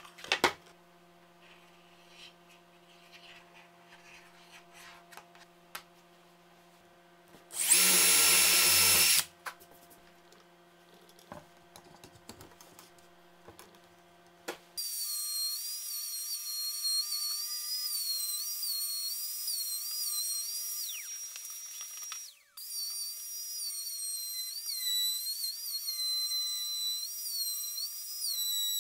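Compact trim router running and cutting a circular groove into plywood on a pivoting circle jig. Its high whine wavers in pitch over and over as the bit takes load, and drops out briefly partway through. Before that it is mostly quiet, apart from one short loud burst about eight seconds in.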